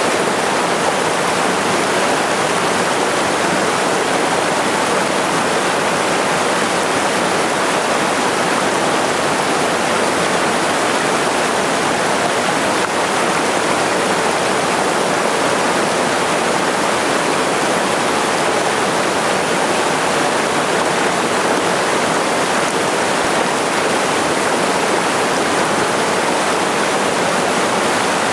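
Small waterfall on a mountain stream pouring into a pool: a loud, steady rush of falling water that stays the same throughout.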